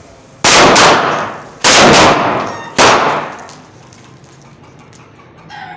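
Firecrackers exploding in three loud blasts about a second apart. Each blast is one or two sharp cracks with a fading tail.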